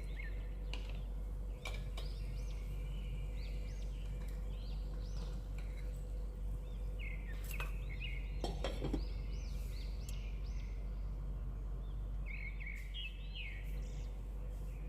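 Small birds chirping in quick runs of short, bright notes, over a steady low hum, with a few sharp clicks about eight to nine seconds in.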